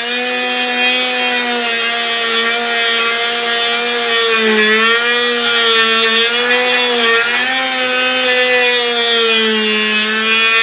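Dremel rotary tool with a diamond cutting head running at a steady high whine while grinding lengthwise down a wooden craft stick to split it in half; the pitch sags slightly now and then as the bit bites into the wood.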